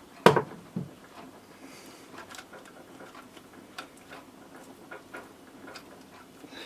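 One sharp click, a second smaller click about half a second later, then scattered faint light clicks and taps: small wiring parts and tools being handled on a workbench.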